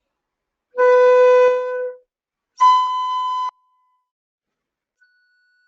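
Transverse flute playing a harmonics exercise on the B fingering. A held B comes first, then after a short silence its octave harmonic. Near the end the next harmonic, a fifth higher, enters softly and begins to swell.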